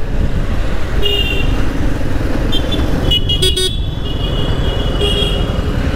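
Yamaha MT-15 V2's 155 cc single-cylinder engine running steadily under way in city traffic, with vehicle horns honking: a short toot about a second in, then longer horn blasts from about two and a half to five and a half seconds in.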